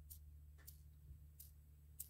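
Faint, irregular ticking from a small worn fishing-reel ball bearing turned between the fingers: the balls grinding in the worn-out bearing, a noise that means it needs replacing.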